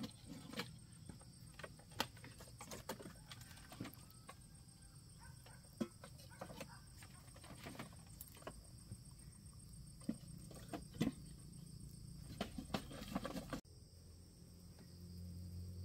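Scattered light knocks and clicks as a metal wok is handled on a bamboo slat floor. Near the end the knocks stop and a low steady hum takes over.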